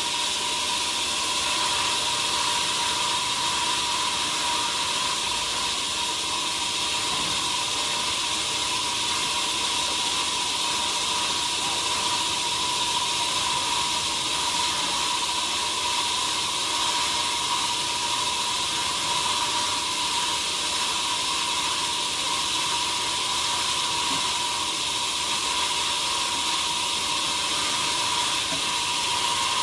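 Steady machine hiss with a high, even whine, unchanging throughout, with no sign of a saw entering wood.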